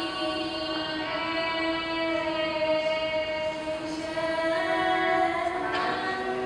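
Several women's voices singing long held notes together in harmony, the notes overlapping and shifting slowly, with new notes coming in partway through.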